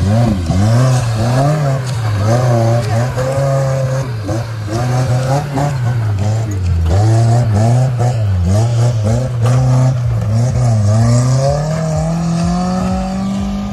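Off-road 4x4's engine revving up and down over and over as it crawls over dirt mounds, then rising steadily near the end as it pulls away.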